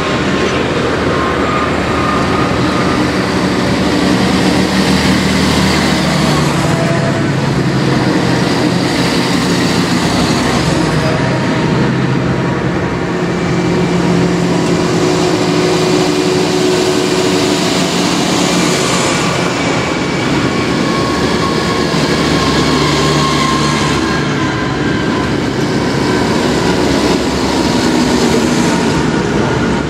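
Diesel engines of a procession of farm tractors driving past one after another, a steady engine drone whose pitch shifts as each tractor approaches and goes by. A blue New Holland tractor passes close and loudest near the end.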